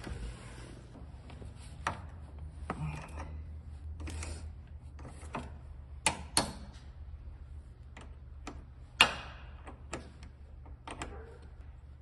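Scattered sharp metallic clicks and taps of a small wrench working the nut on a car battery terminal, over a low steady hum.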